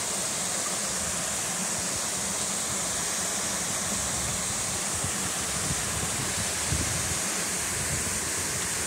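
Steady rush of small waterfalls spilling over rock ledges into a stream's pools, an even hiss that does not let up.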